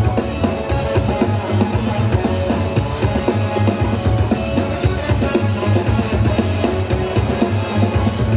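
Breakbeat dance music: a drum kit beat over a repeating bass line.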